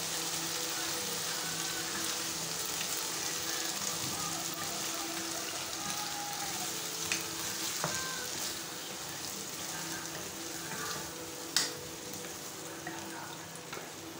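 Pasta sizzling in a nonstick kadai while an egg mixture is poured in slowly and stirred with a wooden spatula; the steady sizzle gets quieter toward the end. There are a few sharp knocks, the loudest about eleven and a half seconds in.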